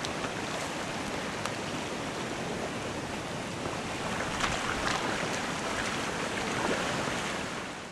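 Spring ice drift on a river: packed ice floes grinding and crunching as they move, over a steady rush of water, with a few scattered sharp clicks and cracks of ice.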